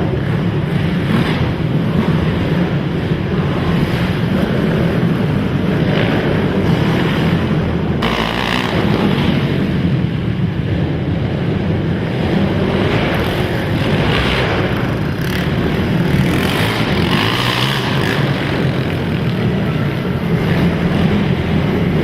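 Several racing quad (ATV) engines running and revving together: a loud, continuous, rough engine noise.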